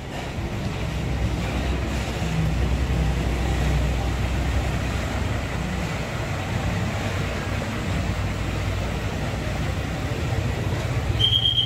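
Bus diesel engine running as a bus moves through the terminal, a steady low drone that swells over the first second or two and then holds. A brief high steady tone sounds near the end.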